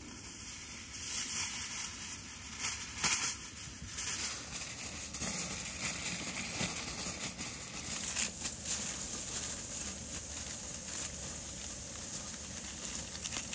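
Aluminium foil crinkling and rustling as it is pulled off the roll and pressed down around the rim of a metal cooking pot to seal it, with the sharpest crackles in the first few seconds.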